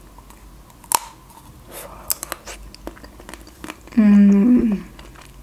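Biting into and chewing a chocolate-coated Magnum ice cream bar close to the microphone: a sharp crack of the chocolate shell about a second in, then small crackling chewing sounds, and a short hummed "mmm" near the end.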